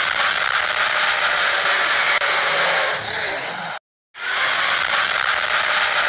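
Made-up monster sound effect for a Godzilla-style creature: a loud, harsh rasping noise with no clear pitch. It cuts off abruptly a little before four seconds in and starts again at once.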